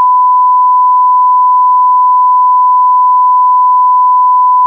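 Censor bleep: a loud, steady 1 kHz sine tone laid over speech to hide what is being said.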